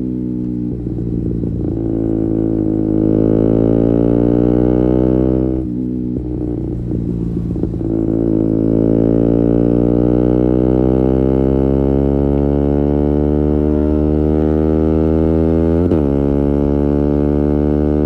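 KTM Duke 125's single-cylinder four-stroke engine through an Akrapovic exhaust with a decat link pipe, ridden under acceleration. The exhaust note rises for the first few seconds and breaks off briefly about six seconds in. It then pulls for a long stretch with the pitch climbing slowly.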